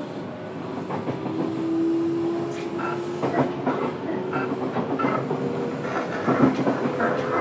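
Fukuoka City Subway 1000N series train running, heard from inside the car: wheels click and clunk over rail joints over steady running noise. A thin motor whine rises slightly in pitch from about a second in and fades out after about three and a half seconds.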